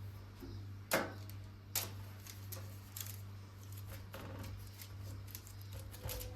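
Light kitchen handling sounds: two sharper knocks about one and two seconds in, then scattered small clicks and taps, over a steady low hum.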